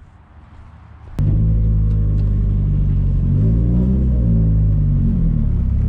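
Nissan S14 240SX engine running, heard from inside the car: after a quiet second a click, then the engine comes in loud and steady, its revs rising and falling a little through the middle.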